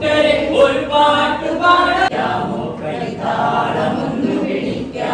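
A group of voices singing a Malayalam song together in chorus.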